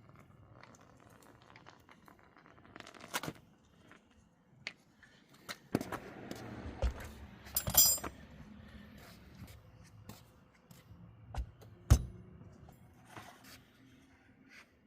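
Tools and metal parts handled during a car wheel change: scattered clinks, scrapes and knocks, with a rustling stretch in the middle and the sharpest knock about twelve seconds in.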